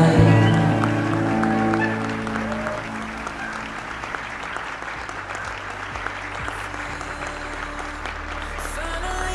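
Wedding guests applauding, under the last held chord of a song that fades over the first couple of seconds, with soft low music tones continuing beneath the clapping.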